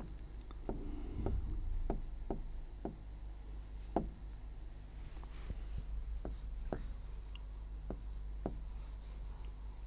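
Writing on a board: about a dozen short, irregular taps and strokes, over a steady low electrical hum.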